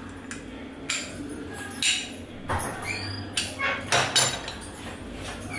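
Kitchen dishes and utensils clinking and knocking several times, loudest toward the middle, over a steady low hum.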